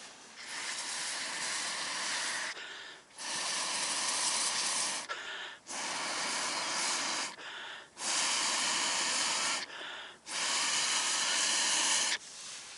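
Five long puffs of air, each about two seconds, with short pauses for breath: blowing on the charcoal under the pot to bring the fire up for reheating.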